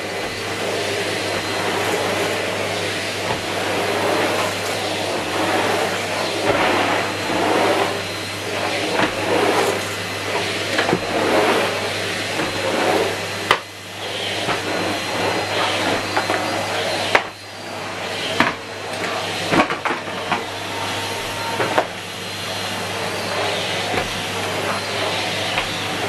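Numatic Henry Turbo (HVT160) vacuum cleaner running on carpet. Its motor drones steadily with a thin high whistle, and the airflow swells and dips as the floor tool is pushed back and forth. The sound drops briefly twice in the middle, and a few sharp clicks come in the second half.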